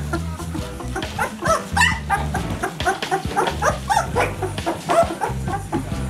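Eleven-day-old puppies squeaking and whimpering while they jostle to nurse: many short, high calls, several a second and overlapping. Background music with a steady bass line plays under them.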